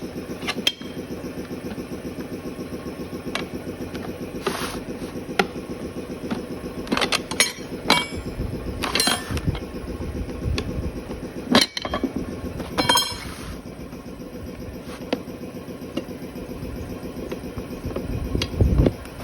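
Steel tyre levers knocking and scraping against a scooter wheel rim as the tyre is pried off, with several sharp metallic clinks and short rings. A steady motor hum runs underneath.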